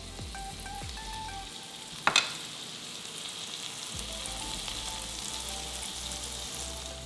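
Minced garlic sizzling steadily in hot melted margarine and oil in a skillet, with a single knock about two seconds in.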